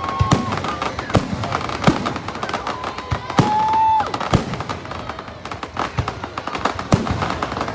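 Fireworks bursting overhead: a rapid, irregular series of sharp bangs and crackles, with a short steady whistle about three and a half seconds in.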